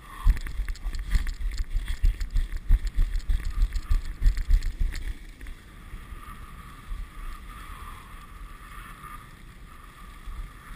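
A dog sled gliding over a snow trail, its runners making a steady hiss, with heavy gusts of wind buffeting the microphone for the first five seconds or so.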